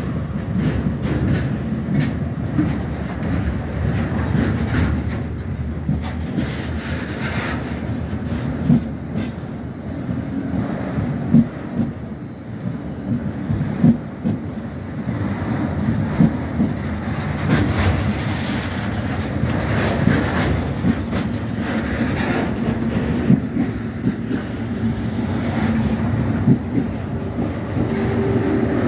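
A delivery train of flat wagons and new, unpowered electric multiple units rolling past on the platform line. The wheels click irregularly over rail joints above a steady rumble.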